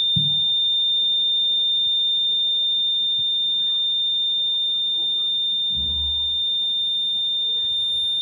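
Rain detector's buzzer sounding one continuous, steady high-pitched tone, switched on by the BC547 transistor circuit: the sign that water is bridging the two blade sensors.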